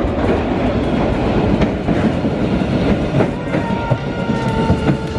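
MBTA Blue Line subway train pulling into the station: a steady heavy rumble of wheels on the rails, with clacking over the rail joints.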